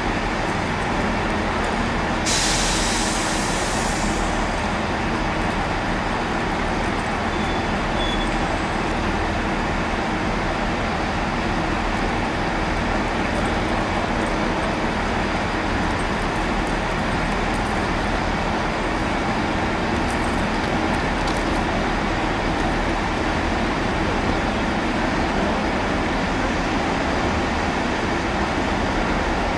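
Diesel train engine running steadily at a station, with a short burst of hissing air about two seconds in.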